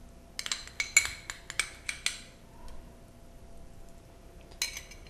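A metal spoon clinking and tapping against a saucepan as butter is worked off it into the pan: a quick run of ringing strikes in the first two seconds, and another brief clink near the end.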